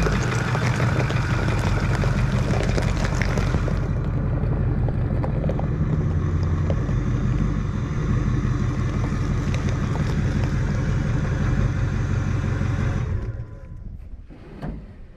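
Ford F-250 Super Duty pickup's engine running steadily, with extra high hiss over it in the first few seconds; the engine sound drops away about 13 seconds in, and a single knock follows near the end.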